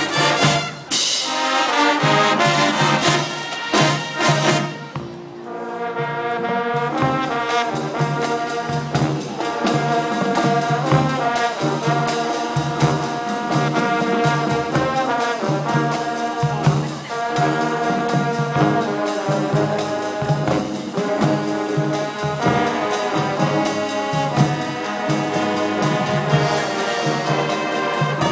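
Drum and bugle corps playing: brass horns holding chords over a steady marching-drum beat. Loud percussion hits open the passage, the music drops in volume about five seconds in, then the brass builds back up.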